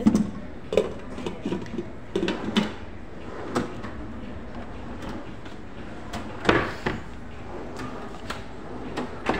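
Scattered knocks and clunks of modular kitchen drawers and cabinet doors being handled, the loudest about six and a half seconds in, over a steady background noise.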